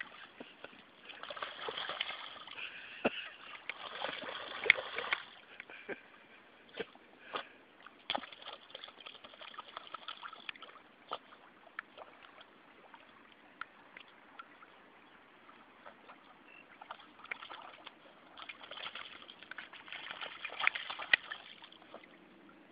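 Small dogs wading in shallow lake water, with splashing and sloshing in two spells, one near the start and one near the end, and scattered sharp clicks in between.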